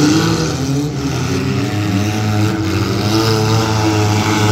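Engines of several figure-8 race cars running and revving together, their pitch rising and falling as the cars accelerate and slow around the track.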